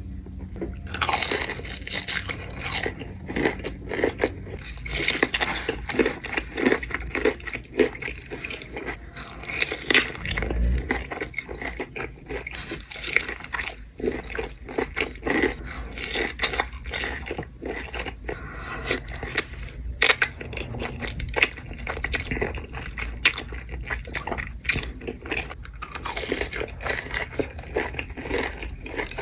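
A person eating close to the microphone: continuous irregular crunching, biting and chewing of food.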